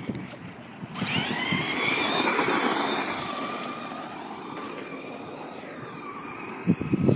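Electric RC monster truck motor whining up in pitch as the truck accelerates about a second in, holding, then dropping away and fading as it eases off.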